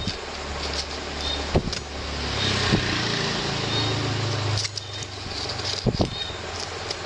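A motor vehicle's engine running nearby, a low hum that swells and then fades out about five seconds in, as if it passes by. A few sharp knocks sound over it as the steel bearing ring is handled on the concrete bench.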